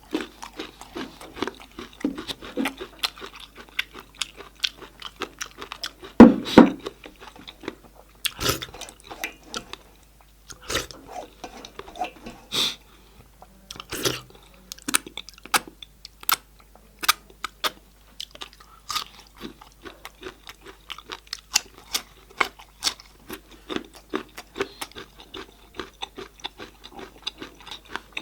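Close-miked eating of goat head meat: steady chewing and biting with wet mouth clicks and crunches, and one louder mouth sound about six seconds in.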